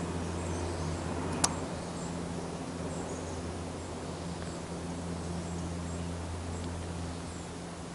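Faint, repeated high-pitched chirping from small wild animals over a steady low hum, with a single sharp click about one and a half seconds in.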